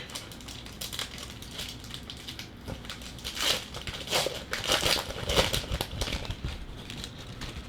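Wrapper of a Panini trading-card pack being opened and handled, a run of irregular crinkling and crackling rustles that is busiest in the middle.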